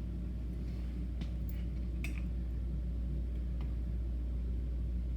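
A few faint clicks of an Allen wrench working a bicycle pedal tight into the crank arm, over a steady low hum.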